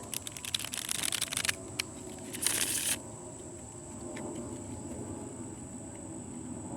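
A deck of reading cards being shuffled: a quick run of card clicks for about a second and a half, then a short brushing slide of cards about two and a half seconds in, after which the handling stops.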